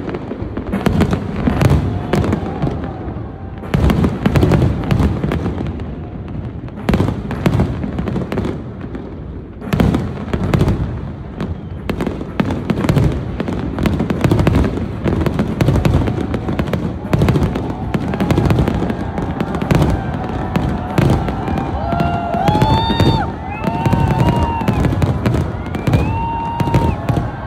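Aerial firework shells bursting in quick, dense succession, a continuous run of sharp bangs and booms. From about two-thirds of the way in, whistling tones that rise and fall sound among the bursts.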